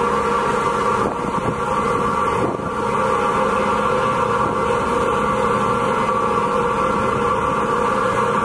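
Steady engine drone of a ferry under way, heard from on board over a constant rushing noise.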